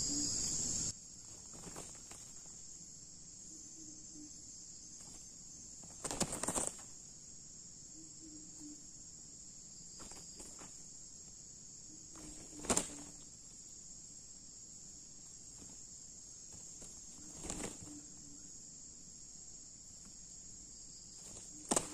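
Steady high-pitched drone of insects (crickets and cicadas), louder for the first second and then softer. It is broken by a few brief rustling bursts, about four in all.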